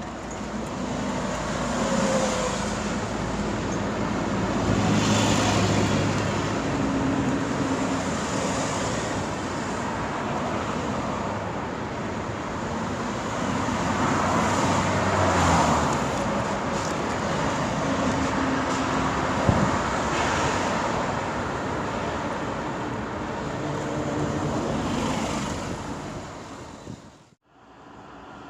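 Crane engine running, its pitch shifting up and down as it works, over steady traffic noise. The sound cuts off abruptly near the end.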